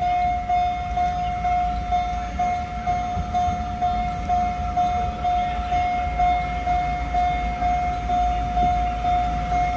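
Level-crossing warning bell ringing steadily, an even ding about twice a second, for a narrow-gauge sugar-cane railway, with a low rumble underneath.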